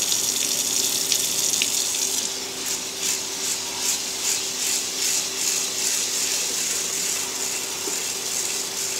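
Kitchen tap running into a stainless steel sink as rice is rinsed in a rice cooker pot. From about two seconds in, a hand swirls the rice in the water, giving a rhythmic swishing about three times a second.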